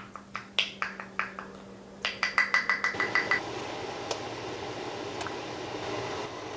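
A gas stove's igniter clicking rapidly, then the burner catching with a steady rush of flame.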